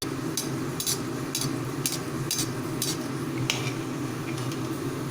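Chicken donut deep-frying in hot oil on a low flame: a steady sizzle with sharp pops about twice a second, over a low steady hum.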